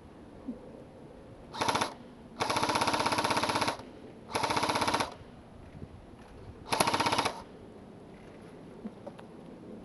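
Electric airsoft rifle firing on full auto: four bursts of rapid rattling shots, a short one, a long one of about a second and a half, and two shorter ones.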